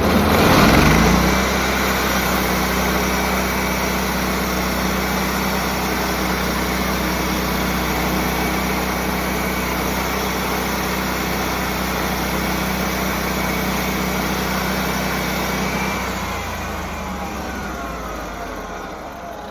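Engine-driven sawmill revving up about a second in, then its new blade cutting steadily through a green black walnut log. The cutting noise eases off in the last few seconds as the blade exits the log, with the engine still running.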